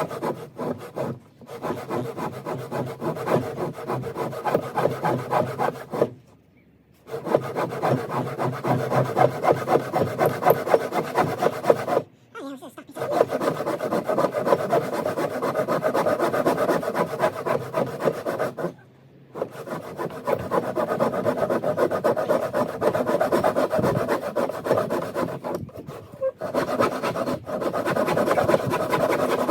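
Hand saw cutting through a timber joist in steady back-and-forth strokes, stopping briefly four times.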